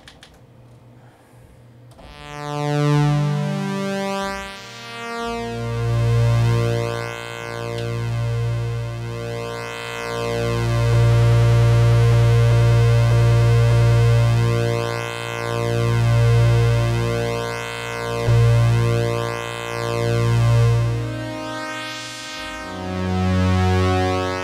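Kurzweil PC3 synthesizer playing a layered pulse-width-modulation patch: a few rising single notes about two seconds in, then held chords over a low bass note. The tone sweeps in a slow, repeating swirl through its upper harmonics as the pulse width is modulated.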